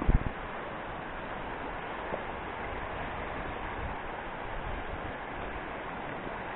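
Fast-flowing mountain stream rushing steadily over stones, with a couple of short low thumps just at the start.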